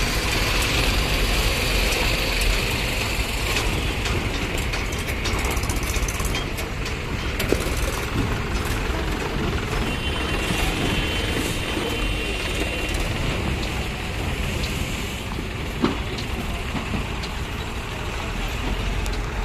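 Diesel engines of heavy trucks and a tractor running close by as they crawl through a traffic jam: a steady low rumble with a few sharp knocks.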